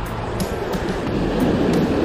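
Sea waves breaking and washing over rocks, the rush swelling about one and a half seconds in, with background music underneath.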